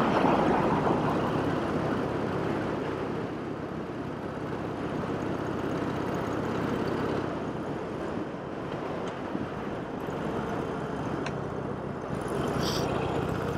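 Wind rushing over a helmet-mounted lavalier mic, with the Harley-Davidson Iron 883 Sportster's air-cooled V-twin running underneath at a steady cruise. The rush is loudest in the first second, then settles.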